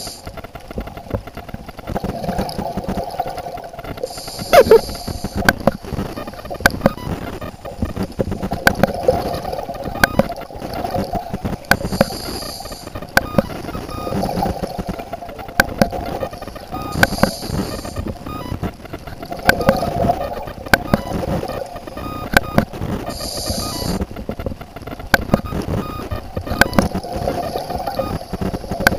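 Scuba regulator breathing underwater: four hissing inhales spaced several seconds apart, each followed by a stretch of bubbling exhale. Sharp clicks are scattered throughout.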